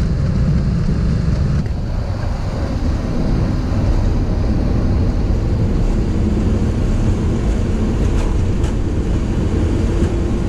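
Steady rumble and rush inside a Boeing 737-800's cockpit during the takeoff roll, with its CFM engines at takeoff thrust and the wheels running down the runway. The low rumble changes character about two seconds in.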